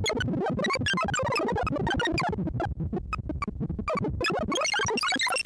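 Breadboarded analog lowpass filter circuit driven by a synthesizer, making fast electronic bleeps that jump about in pitch several times a second.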